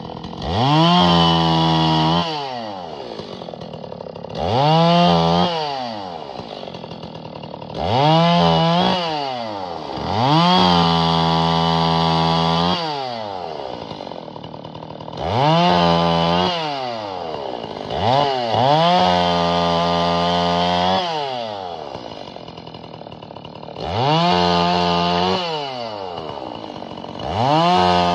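Husqvarna 61 two-stroke chainsaw cutting firewood. Eight times it revs up to full throttle for a cut, holds there for one to three seconds, then drops back to idle between cuts.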